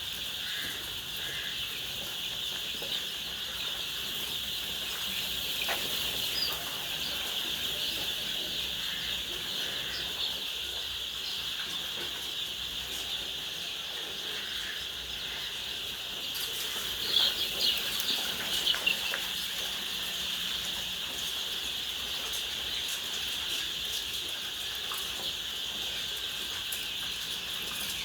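A flock of laying hens clucking over a steady high-pitched buzz, with a burst of louder, sharper calls about two-thirds of the way through.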